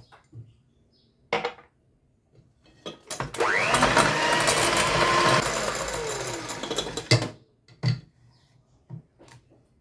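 Electric mixer whirring for about four seconds, rising in pitch as it speeds up and falling away as it stops, beating the egg, sugar and oil batter. A few short knocks of utensils or the bowl come before and after it.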